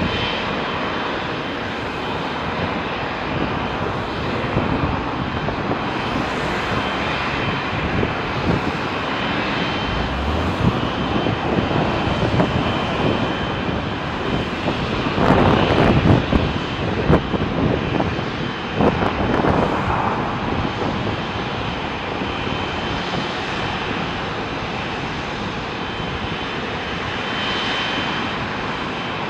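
Boeing 777-300ER's GE90 jet engines at taxi thrust, a steady jet rumble with a faint high whine, growing louder for a few seconds past the middle as the airliner rolls toward the listener.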